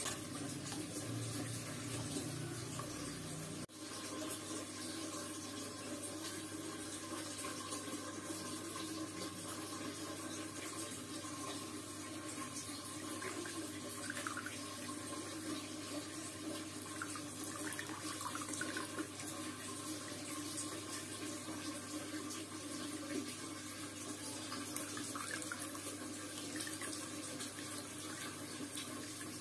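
Water trickling steadily from a thin plastic tube into a cut plastic bottle in a small homemade fountain, with a steady low hum underneath.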